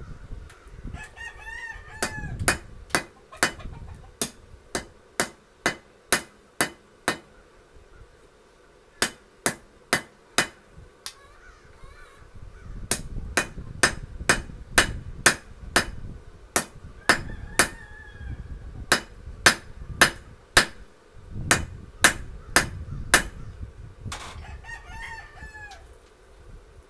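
Hand hammer striking a hot steel knife blank, forged from a lawnmower blade, on an anvil: runs of ringing blows about two to three a second, with short pauses between runs. A rooster crows several times in the background.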